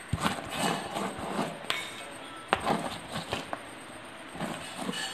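Light, irregular clinks and knocks against an aluminium cooking pot as fried onions and cashews are scattered over layered biryani rice.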